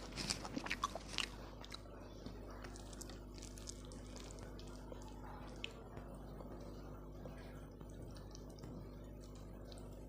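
Close-miked mouth sounds of eating: crunchy bites for about the first second and a half, then soft, wet chewing with scattered small clicks.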